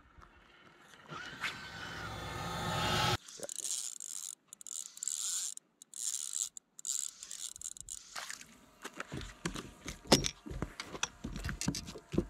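A rising rush of noise that cuts off suddenly about three seconds in. In the second half comes a run of sharp knocks and scrapes as a caught bream flaps in a landing net on a boat's carpeted deck and is handled.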